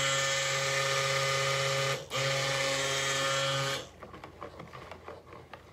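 Electric stick blender running in a bucket of cold-process soap batter, a steady motor hum in two runs with a brief break about two seconds in, stopping a little before four seconds. It is blending the oils and lye toward trace.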